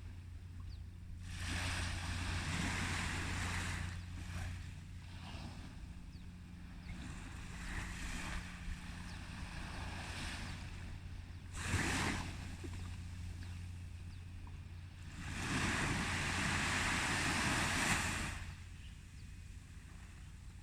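Sea waves breaking and washing up a beach, the surf noise swelling and fading every few seconds, with the biggest surge about fifteen seconds in lasting some three seconds. A steady low hum runs underneath throughout.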